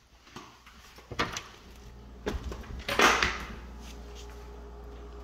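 Garage entry door being opened and walked through: a latch click about a second in, then knocks, the loudest about three seconds in. A steady low hum comes in with the first click.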